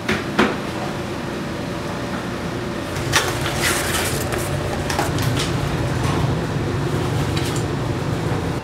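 Cardboard box being opened by hand: flaps rustling and knocking in a few short bursts, over a steady low hum.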